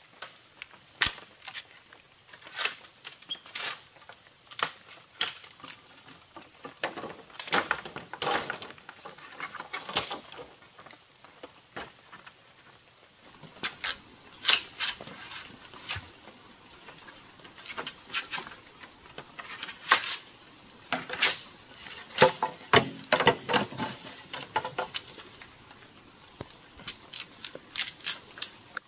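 Irregular sharp taps and knocks, with two longer stretches of scraping, from hand work on materials.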